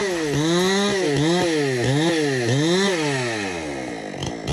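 Chainsaw engine revved repeatedly, its pitch rising and falling about twice a second, then dropping back to a low idle near the end.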